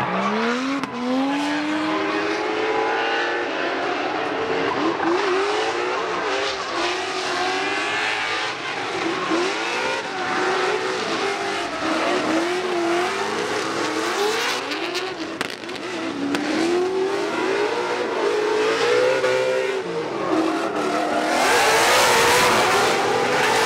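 Drift cars' engines revving up and down over and over, several at once, with tyre noise from sliding tyres, loudest near the end.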